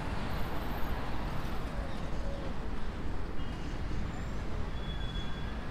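Steady road-traffic noise: a continuous low rumble with no single vehicle standing out.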